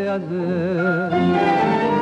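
Sung tango with its accompaniment: the singer holds one note with a wide vibrato, then about a second in the accompaniment swells in with a full chord.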